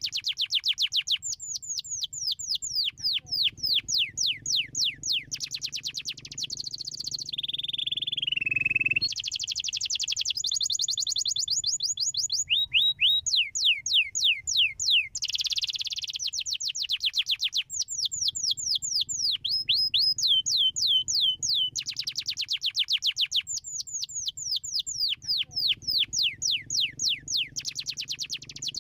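Domestic canary singing: rapid rolling trills of repeated high, downward-sweeping notes, switching to a new trill every few seconds, with a slower gliding phrase about eight seconds in.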